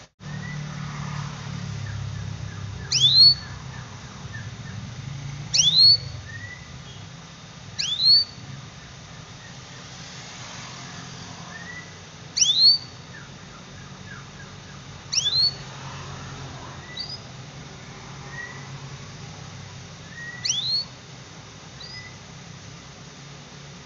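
Young canary giving a repeated high 'cuit' call at irregular intervals of a few seconds. Each call is a sharp downward sweep followed by a short upturned note, with soft lower peeps between the calls. A low steady hum runs underneath.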